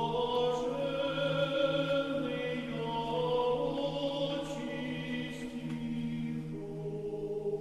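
Background music: Orthodox church chant sung by a choir over one low held drone note, with the upper voices moving slowly from note to note.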